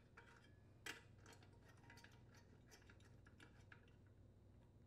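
Faint, scattered small metallic clicks and ticks as a Briggs & Stratton muffler flange bolt is turned in by hand and a socket is fitted over its head, the sharpest click about a second in.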